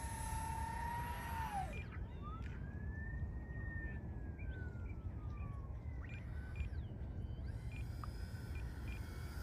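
Motor and propeller whine of a twin-motor Stryker RC delta-wing plane in flight. A steady whine drops away in pitch about a second and a half in. Then a whine rises and sinks slowly in pitch over about three seconds as the plane flies slowly overhead, over a low rumble.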